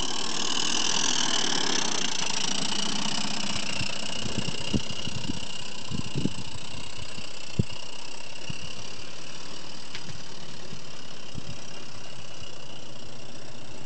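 Regner Vincent gas-fired live-steam garden railway locomotive running, with a steady hiss and a few sharp knocks and clicks in the middle.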